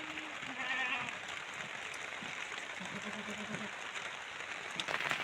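Goats bleating: two short calls near the start and a quavering bleat about three seconds in, over a steady hiss.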